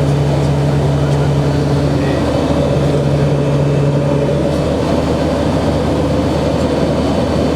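Cabin noise of a Beech Royal Turbine Duke's PT6 turboprop engines and propellers in cruise: a loud, steady drone. About two to four seconds in, the low propeller hum fades away while a higher tone comes in, as the engine and propeller note changes.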